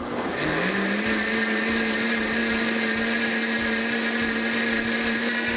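Cuisinart Hurricane CBT-1500C blender running on high speed, puréeing a hot liquid soup: its motor whine rises in pitch as it spins up over the first second, then holds a steady, even tone.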